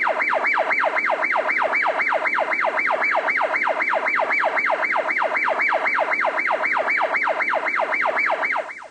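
Electronic siren in a fast yelp: a falling wail repeating about four times a second, dropping away right at the end.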